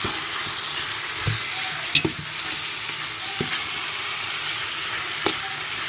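Chicken pieces, onions and parsley sizzling in sunflower oil in a pot while being stirred, with a steady hiss and several short knocks of the stirring utensil against the pot.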